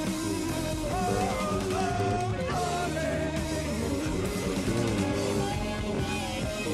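Background rock song with guitar and a singing voice.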